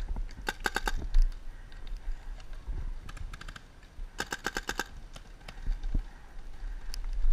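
Paintball markers firing in quick bursts of sharp pops, about ten shots a second: one burst about half a second in, a short one around three seconds and a longer one around four to five seconds, with a single knock between.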